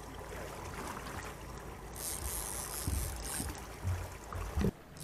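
A fishing reel's drag buzzes for about a second and a half, starting around two seconds in, as a hooked king salmon pulls line off the reel. A steady low rumble from the boat runs underneath, and a couple of dull knocks come near the end.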